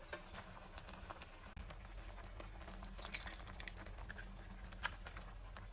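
Faint scattered clicks and light rustling over a steady low hum, with one sharper click a little after three seconds and another near the end.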